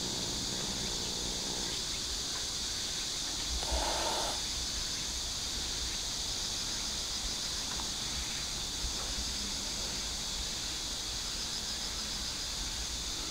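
Steady, high-pitched drone of a chorus of insects, with a brief louder sound in the middle range about four seconds in.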